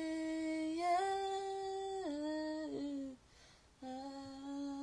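Unaccompanied solo voice humming long held notes with no words. The pitch steps up about a second in and drops again about two seconds in, then breaks off briefly, and a lower note is held from about four seconds in.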